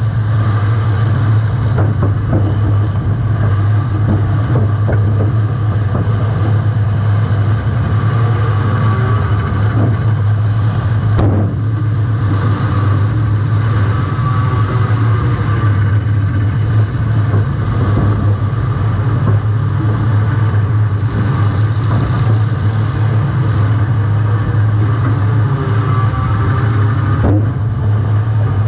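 Compact demolition-derby car's engine running hard and revving up and down throughout. A sharp bang about eleven seconds in, and another near the end, are collisions between cars.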